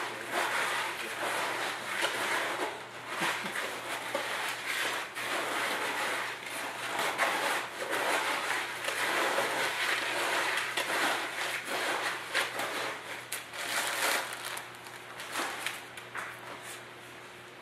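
Gloved hand working a wet Portland-cement mix in a plastic bucket: a continuous irregular scraping and crunching that eases off over the last couple of seconds.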